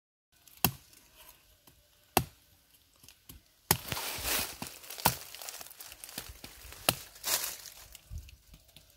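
Five sharp chopping knocks, spaced about a second and a half apart, with rustling and tearing noise in between.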